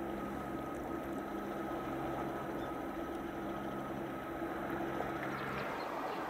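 Cruise ship Nippon Maru's machinery droning steadily across the water as it passes, a low hum of several steady tones over a broad rushing noise; the deepest hum drops away about five and a half seconds in.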